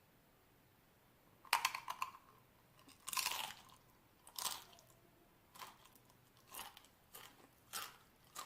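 Pringles potato crisps being bitten and chewed close to the microphone: a run of about eight short, sharp crunches roughly a second apart, the first few loudest.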